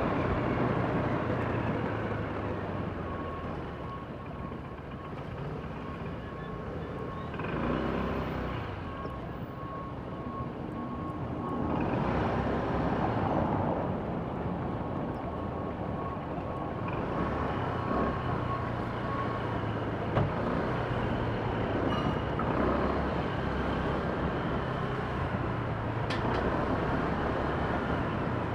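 Honda PCX 125 scooter's single-cylinder engine running under way, with road and wind noise and city traffic around it, swelling louder a few times.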